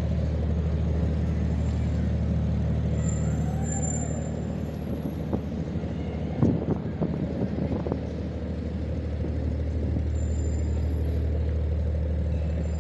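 Steady low rumble of road traffic in a city street, with a few short sharp knocks about halfway through.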